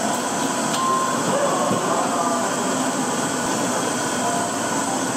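Steady rumble of a working street-food kitchen, burners and extractor fans running, with faint background voices and a light click about a second in.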